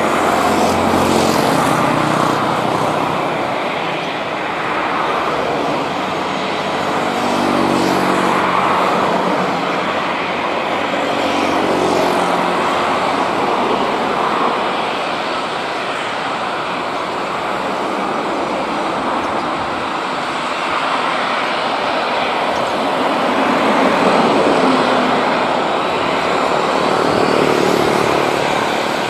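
CFM56 jet engines of an Airbus A320 running at high power as it rolls along the runway for takeoff: a loud, steady roar that swells and eases several times, with low humming tones in the middle.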